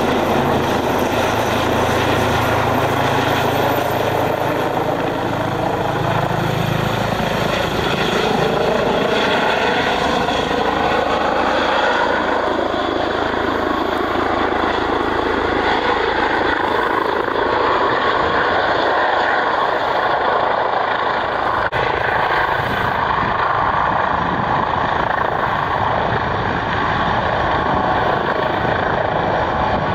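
Eurocopter EC135 twin-engine helicopter flying low and coming in to hover for a landing: steady rotor and turbine noise. A whine falls in pitch over the first ten seconds or so, then holds level.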